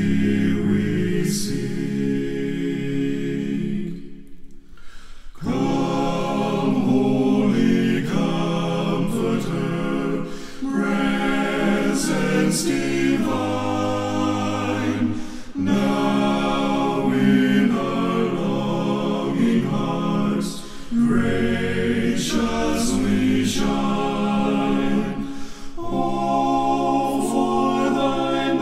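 Male vocal group singing a cappella in several-part harmony, with a short break between phrases about four seconds in.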